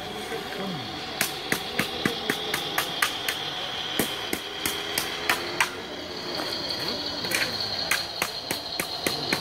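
Small electric drive motors of radio-controlled model construction machines running with a steady high whine that steps up slightly in pitch about six seconds in, mixed with sharp irregular clicks and knocks, about two or three a second.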